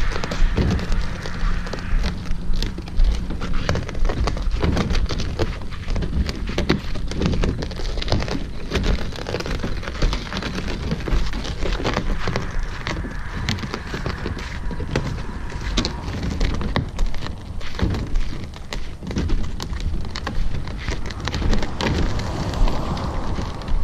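The edge of a round boat's hull rolling over a gritty gravel path, a continuous crunching crackle of stones under the rim.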